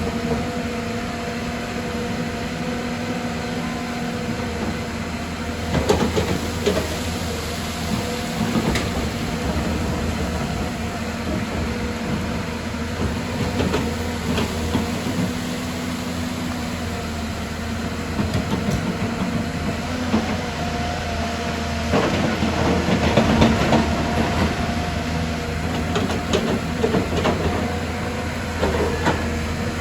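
Excavator's diesel engine running steadily, with clanks and knocks of metal and rock several times, loudest about two-thirds of the way through.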